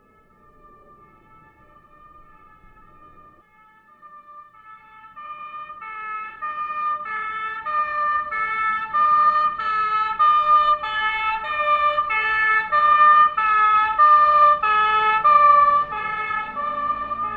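Emergency vehicle's two-tone siren, switching back and forth between two notes about every three-quarters of a second. It starts faint and grows much louder, with a low rumble from the vehicle rising beneath it, as the vehicle approaches; it eases off slightly near the end.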